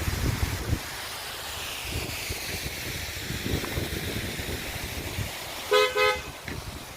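Road traffic noise with a vehicle passing, then a vehicle horn sounding two short toots near the end.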